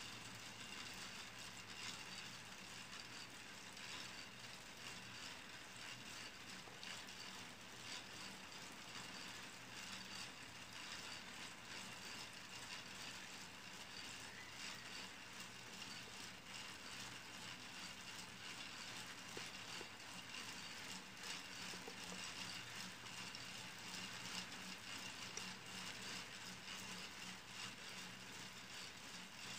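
Faint continuous clicking and rattling of a hand-cranked K'NEX orrery's plastic gear train as it turns.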